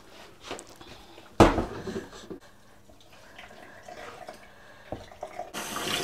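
A loud metal clunk as a saucepan of hot boiled eggs meets a stainless-steel sink, followed by a few lighter knocks. Near the end the tap comes on and runs steadily into the pan over the eggs, cooling them.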